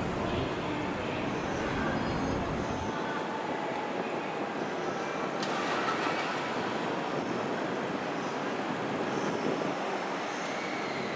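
A train running, heard as a steady noise with faint thin wheel tones; the deepest part of the sound falls away about three seconds in.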